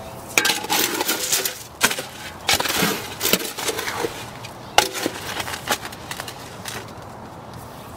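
Shovel chopping and scraping through concrete mix in a steel wheelbarrow, in irregular strokes; a few strokes hit the tub with a short metallic ring. The strokes stop about a second before the end.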